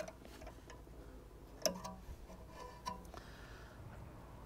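Faint metallic clicks and taps as the anti-rattle spring is worked into place on a Vauxhall Vectra C rear brake caliper. The loudest click comes about one and a half seconds in, with a brief ring after it.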